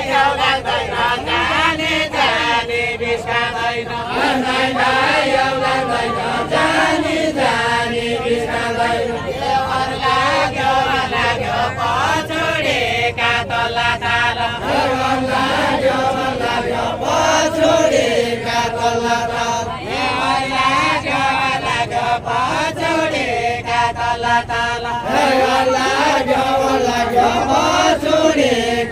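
Deuda folk singing from far-western Nepal: voices chanting a melodic phrase in long held lines, the phrase coming round again about every five to six seconds.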